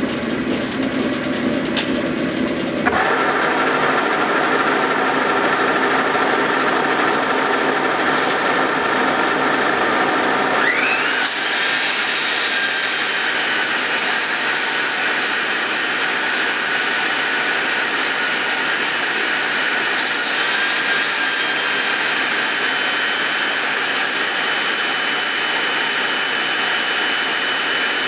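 A metal lathe turns a camshaft. About ten seconds in, a belt-type crank polisher spins up with a rising whine, and its abrasive belt grinds against a cam journal with a loud, steady hiss. The journals are being polished down because the cam is too tight in its new bearings.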